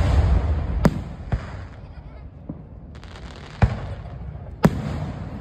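Aerial firework shells bursting: a series of sharp bangs about one a second, three of them loud, with low rumbling in between.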